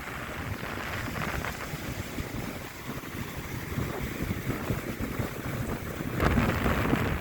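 Wind buffeting the microphone at the seashore, a low rumble with surf beneath it, growing stronger with a gust about six seconds in.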